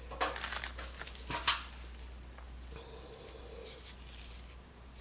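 Soft scraping and rustling of a wooden craft stick working thinset mortar, dabbed onto the metal satellite dish and scooped from a plastic tub, with gloved hands handling the tub. Two short scrapes in the first second and a half, then fainter rustling.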